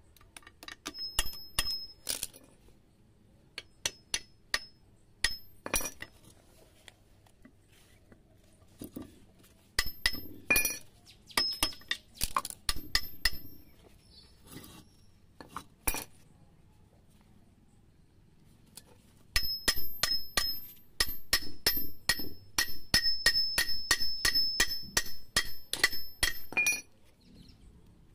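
Hammer tapping on steel parts of a cast gearbox housing, each blow ringing out with a bright metallic tone, as parts are knocked into place. The taps come in short groups, then a long fast steady series of about three taps a second from about two-thirds of the way in.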